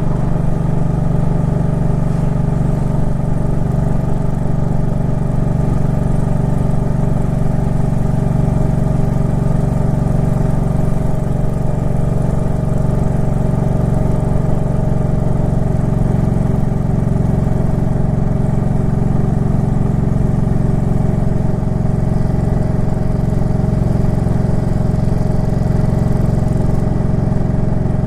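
Suzuki Intruder Classic 400's V-twin engine running steadily at an even pitch, with no revving up or down.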